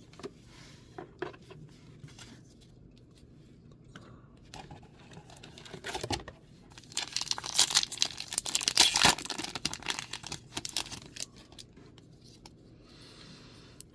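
A Magic: The Gathering booster pack wrapper being torn open and crinkled, with the loudest stretch of tearing and crackling in the middle, amid small clicks of card and wrapper handling.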